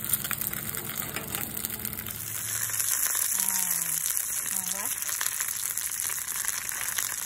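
Bánh xèo (Vietnamese crispy pancake) frying in hot oil in a skillet: a steady sizzle that grows thicker and louder about two seconds in.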